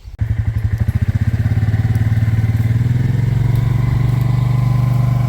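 A small engine starts abruptly and runs steadily at a low, even pitch, pulsing at first and settling after a couple of seconds.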